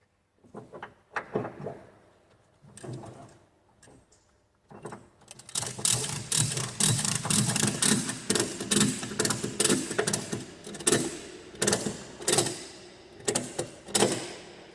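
Ratchet strap being cranked tight, its pawl clicking with each stroke of the handle: a few scattered clicks at first, then a quick, steady run of ratcheting from about five seconds in.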